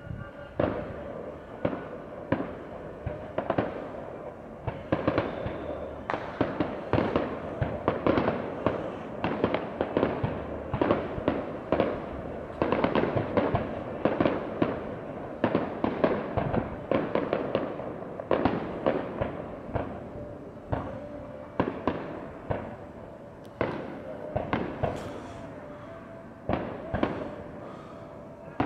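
Fireworks display: aerial shells bursting in a rapid, irregular run of bangs and crackles. The bursts are densest through the middle and thin out toward the end.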